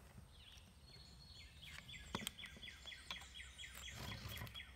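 A songbird singing a rapid run of short, repeated chirps, about five a second, beginning about a second and a half in, with a couple of faint clicks from cords being handled.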